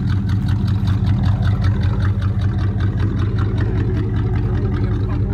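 Dodge pickup truck's engine idling steadily, heard close to its exhaust.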